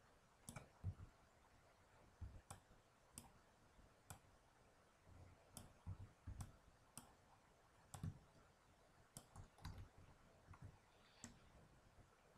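Faint computer mouse and keyboard clicks, a dozen or so at irregular intervals, over near silence.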